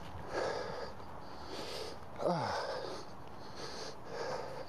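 Footsteps swishing through wet grass at walking pace, with a man's breathing and a short falling vocal sound about two seconds in.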